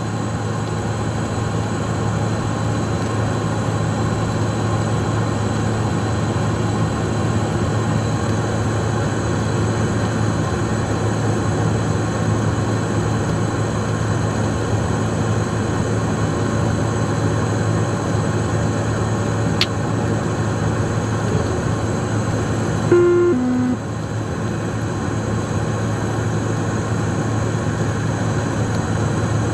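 Steady cockpit noise of a Cessna Citation Mustang's twin turbofans and airflow, a constant drone with a low hum. A short two-note falling tone sounds about three-quarters of the way through.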